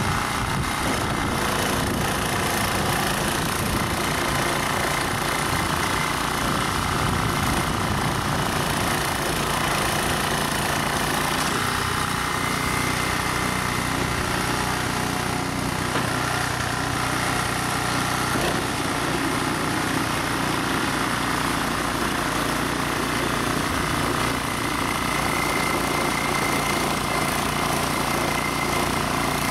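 Ariens Deluxe 30-inch snow blower's 306 cc single-cylinder engine running steadily.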